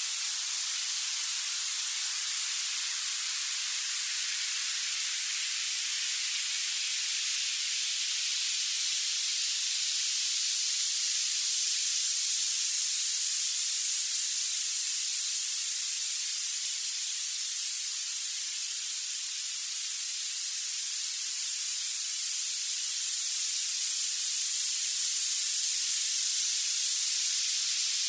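Violet noise: a steady, high-pitched synthetic hiss with nothing in the low end, growing stronger toward the top of the hearing range.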